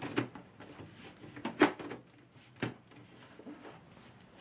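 Side panel of a PC case being slid and pressed into place on the chassis, with a few sharp clicks and knocks as it seats. The loudest knock comes about a second and a half in.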